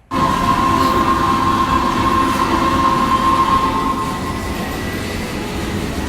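Ride cars rumbling along a rail track, with a steady high wheel squeal that fades out after about four seconds.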